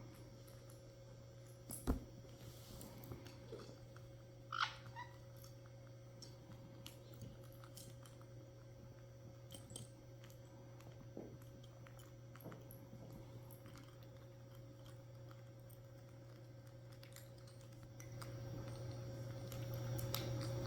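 Caique parrots picking apart Lego pieces: faint scattered clicks of beaks on plastic and a sharper click about two seconds in. One short squeak comes about four and a half seconds in, over a steady low hum.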